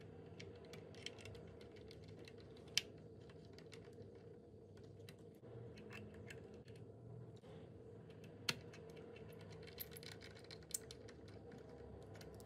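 Faint clicking and ticking of a small T5 Torx screwdriver and tweezers working tiny screws into the plastic arm-shaft mount of a DJI Mini 4 Pro drone, with two sharper clicks about three and eight and a half seconds in.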